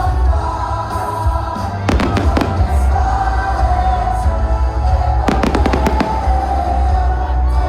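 Fireworks going off, with clusters of sharp cracks about two seconds in and again about five and a half seconds in, over music with a heavy bass and a sung melody.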